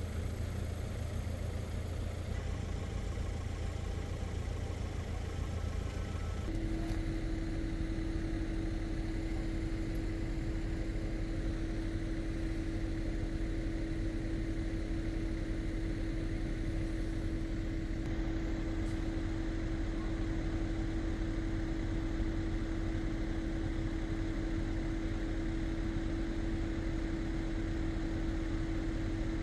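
Car engine idling with a low rumble. About six seconds in the rumble drops away and a single steady humming tone takes over and holds.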